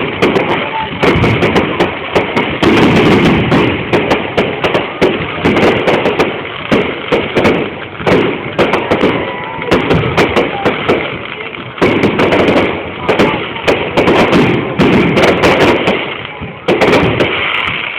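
Fireworks going off: a dense, irregular run of sharp bangs and crackles, one after another with no real pause.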